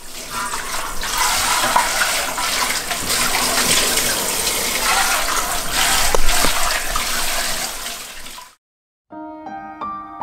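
Kitchen faucet running, its spray falling on a mesh strainer being scrubbed by hand in a stainless steel sink, with a couple of sharp clinks. The water cuts off suddenly about eight and a half seconds in, and slow piano music begins shortly after.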